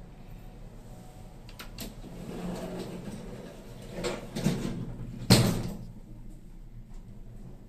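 Elevator door sliding and banging shut: a couple of clicks, a rumbling slide, then two knocks and a sharp thump about five seconds in.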